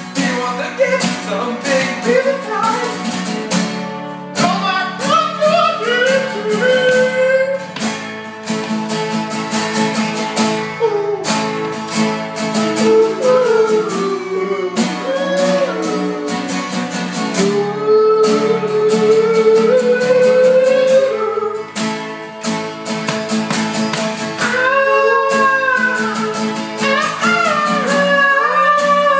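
Two acoustic guitars strummed in a steady rhythm while men sing together over them.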